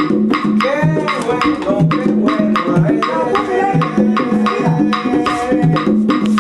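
Cuban popular dance music driven by percussion: a quick, steady pattern of drum and wood-block-like strokes over a repeating low bass pattern.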